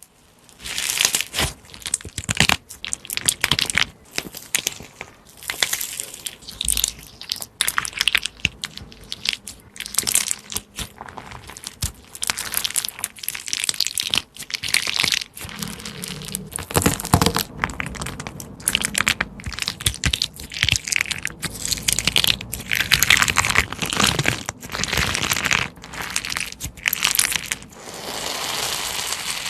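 Crunchy slime being squeezed and pressed by hand, giving repeated bursts of crackling and crunching.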